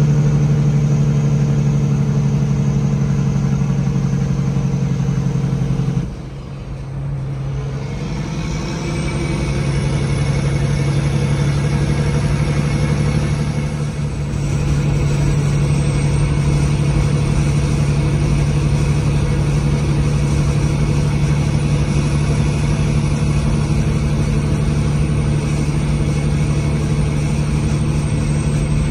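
Peterbilt 379's diesel engine running steadily under way, heard from inside the cab. About six seconds in the engine note drops off sharply and builds back up over a few seconds with a high whistle rising over it, then dips again briefly around fourteen seconds before settling back into a steady pull.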